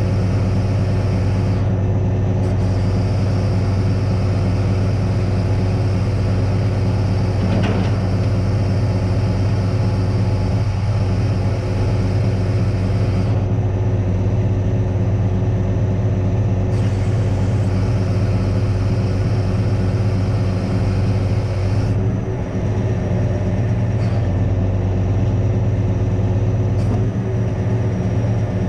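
Crane truck's diesel engine running steadily at a constant speed to drive the knuckleboom crane's hydraulics, with a single short knock about eight seconds in.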